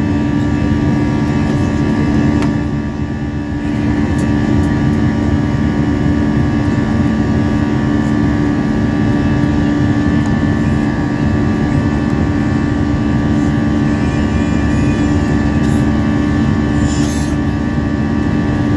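Jet airliner cabin noise in the climb after take-off: a steady engine drone with two strong low hums over a constant rush of air, heard inside the cabin. The noise dips slightly about three seconds in, and there is a short scratchy sound near the end.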